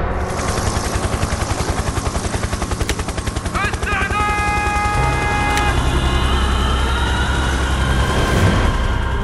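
Cinematic war sound design: a rapid, even chopping pulse over a deep rumble for the first few seconds, then a heavier low drone. A few steady high electronic tones sound around the middle.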